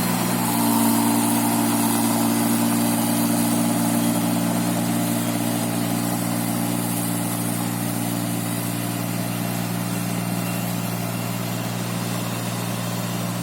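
Rice machine's engine running steadily, its tone shifting slightly about half a second in and then holding even.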